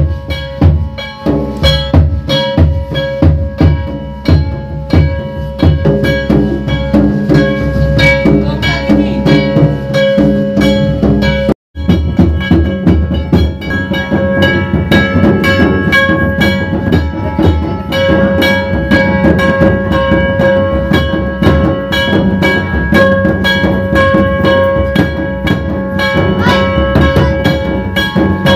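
Santali dong dance music: fast, heavy drumming under a steady, sustained melody line. It cuts out for an instant about twelve seconds in, then resumes.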